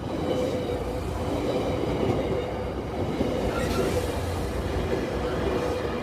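Train passing close by: a loud, steady rumble of wheels on the rails with a few steady tones over it, starting abruptly as it arrives.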